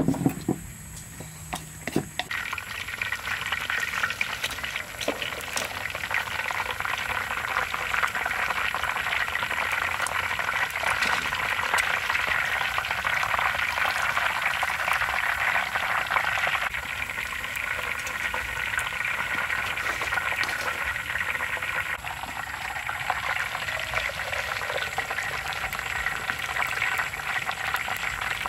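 Hot oil sizzling and crackling steadily around a whole chicken deep-frying in a large wok. It starts about two seconds in, after a few knocks.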